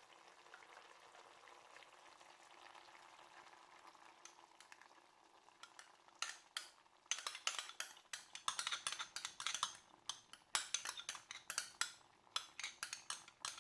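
Curry chicken cooking in a pot: a faint sizzle at first, then from about six seconds in a utensil stirring and scraping in the pot with quick, irregular clinks.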